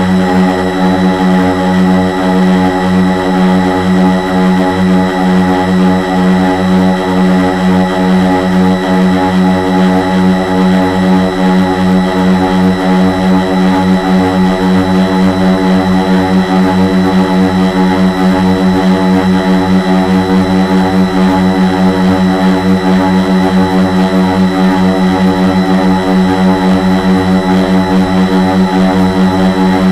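Brushless motors (Multistar 2212 920kv) spinning 10x4.5 props on a 450-size quadcopter, heard from a camera mounted on its frame: a loud, steady hum of nearly constant pitch with a slight waver as it holds position in the air.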